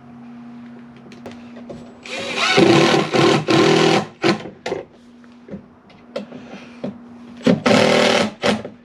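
Cordless drill driving screws into a wooden post, two loud runs about two and seven and a half seconds in, with short clicks between them, over a steady low hum.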